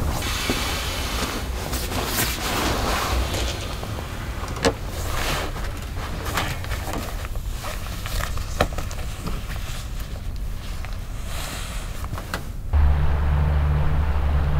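Rustling and light knocks of camping gear being handled and pushed into the back of a pickup's camper shell, with a few sharp clicks. About two seconds before the end it cuts abruptly to a steady, louder low rumble.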